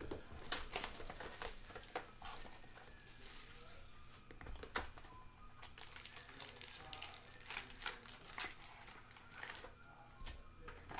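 Foil trading-card pack wrappers crinkling and rustling as a stack of packs is handled and pulled out of a cardboard hobby box, with scattered light clicks and taps of the packs and box.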